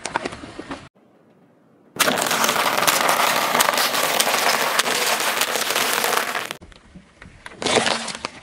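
Waffle ice-cream cones crunching and crackling under a slowly rolling car tyre, a dense run of cracks lasting about four and a half seconds. A shorter crunch follows near the end.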